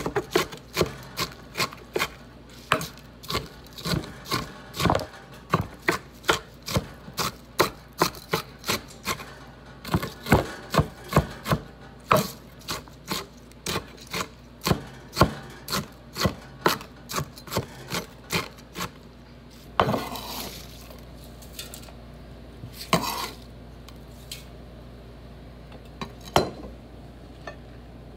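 Chef's knife chopping celery on a wooden cutting board: quick, uneven knife strikes, about two or three a second. The chopping stops after about twenty seconds, followed by a brief scrape and two single knocks.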